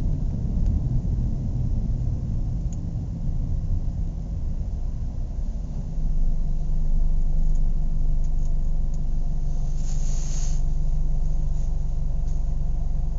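Car engine idling with a steady low drone, which becomes louder about six seconds in and holds there. A short hiss is heard about ten seconds in.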